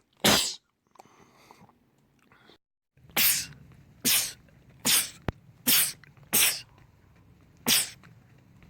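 A man sneezing repeatedly: seven sharp, loud sneezes, one right at the start and then, after a pause of a couple of seconds, a quick run of six, each less than a second apart except a slightly longer gap before the last.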